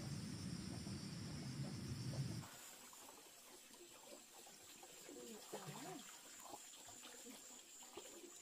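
A steady rushing noise, like running water, that cuts off abruptly about two and a half seconds in, followed by a few faint bird calls.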